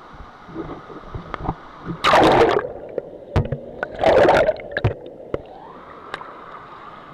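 Handling noise on the camera: two loud scuffing rubs about two and four seconds in, with several sharp knocks between them, over the steady rush of a flooded creek, which sounds muffled while the lens is covered and clears near the end.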